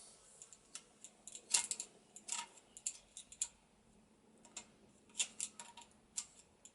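Irregular light metallic clicks and ticks of a hand tool working a tight fastener loose on a Yamaha XS650 engine.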